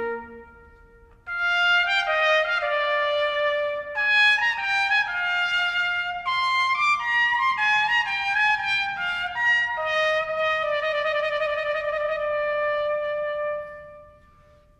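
Trumpet playing an unaccompanied melodic phrase in a high register, with reverberation trailing the notes. The phrase begins about a second in and closes on a long held note that fades away shortly before the end.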